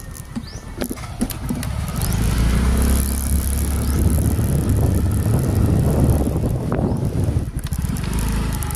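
Motorcycle riding along a road: a steady low rumble of engine and wind on the microphone, building about two seconds in and dipping briefly near the end, with a few knocks early on from the rough road.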